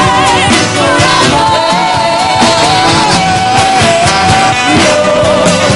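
Live worship band playing, with the singers holding long notes with vibrato over acoustic and electric guitar.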